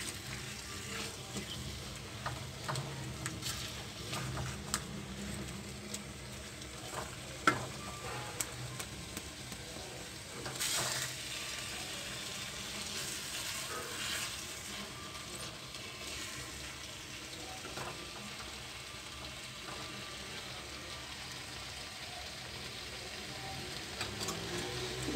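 Rohu fish pieces in thick masala sizzling as they dry-fry in a kadai, with a spatula scraping and clicking against the pan as it stirs, and one sharper knock about a third of the way in.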